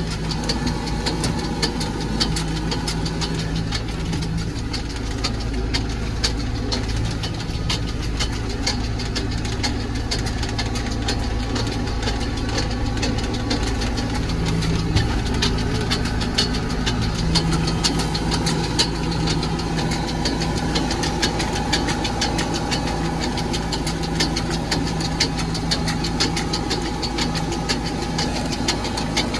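Tractor's diesel engine running steadily while driving, heard from inside the cab, with a constant fast rattle and clicking over the engine note.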